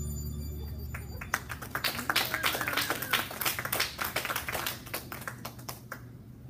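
A song's last notes fading out in the first second, then a small audience clapping for several seconds, thinning out near the end.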